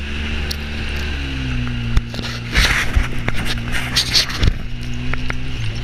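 Side-by-side UTV engine running under way over a rough dirt track, its pitch settling lower about a second in, with knocks and rattles from the body and suspension as it bumps along.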